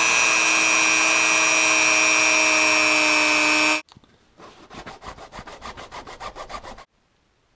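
Handheld rotary tool running steadily with a high whine as its bit cuts grooves into nitrile rubber, stopping abruptly about four seconds in. After a brief gap, a small file scrapes back and forth across the rubber grooves in rapid short strokes for a couple of seconds.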